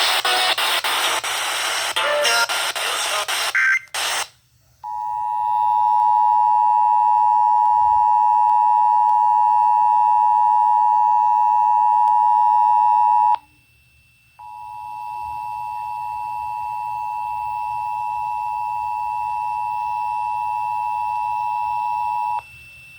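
Emergency Alert System two-tone attention signal, a steady pair of tones just under 1 kHz, sounding for about eight seconds, breaking off for a second, then sounding again for about eight seconds. It follows a loud, noisy burst in the first four seconds that cuts off suddenly.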